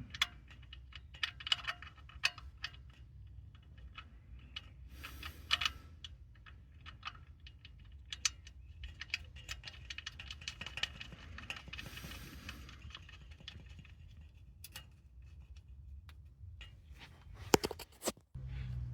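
Irregular clicks, clinks and rattles of hand tools and small metal parts being handled while the oil drain plug is refitted, with a couple of louder knocks near the end.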